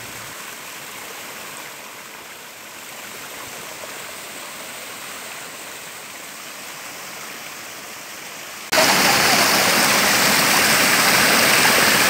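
Small waterfall spilling over a rock ledge into a stream pool: a steady rush of falling water. About three-quarters of the way through it abruptly becomes much louder and brighter.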